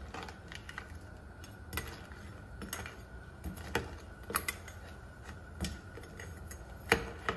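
Metal ladle stirring crab curry in a non-stick pan, giving scattered light clicks and knocks at irregular intervals as it taps the pan and the crab shells, with the loudest knock near the end.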